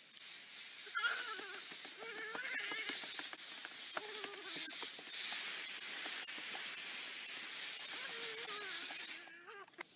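Steady hiss of water showering down, with a small girl on a swing laughing and squealing through it. The hiss cuts off suddenly about nine seconds in.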